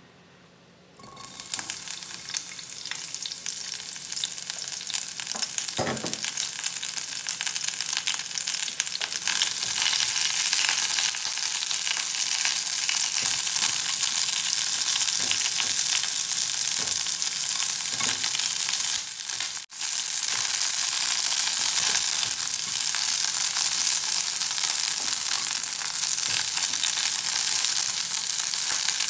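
Sliced onion rings sizzling in a hot nonstick frying pan, the hiss starting about a second in and growing louder over the first several seconds, with the scrape and tap of a plastic spatula stirring them.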